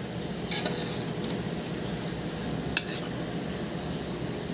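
A spoon scraping and clinking against a metal pot while stirring and scooping thick fish curry, over a steady low hiss. A sharp clink comes a little under three seconds in.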